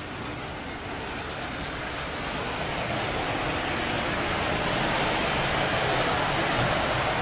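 Model train running on its layout track: a steady running noise that slowly grows louder.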